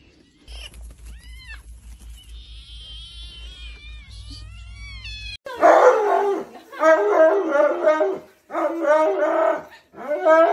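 Thin, high kitten mews over a low pulsing hum. Then, after a sudden cut, a wet husky-type dog being bathed howls and 'talks' in loud, wavering bursts, which are the loudest part.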